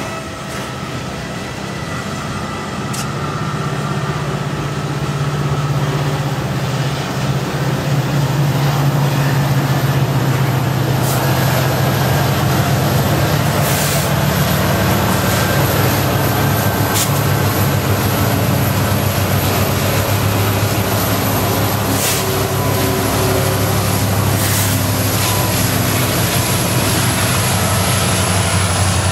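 CN diesel-electric freight locomotives going past with their engines running, a deep drone that builds over the first several seconds and then holds steady. Tank cars roll along with them, and a few sharp clicks of wheels crossing rail joints come through.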